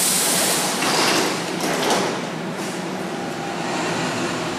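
Doors of a Berlin U-Bahn train closing: a loud hiss of air fades away, then the doors slide shut with knocks about one and two seconds in. A steady mechanical hum from the standing train follows.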